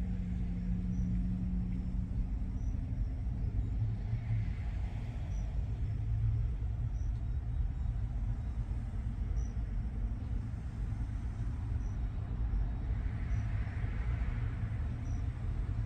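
Steady low rumble of idling vehicle engines, with a faint high tick repeating about every second and a half.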